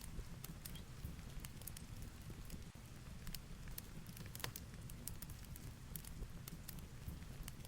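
Fireplace crackling with irregular sharp pops, over the steady low rumble and hiss of a rainstorm.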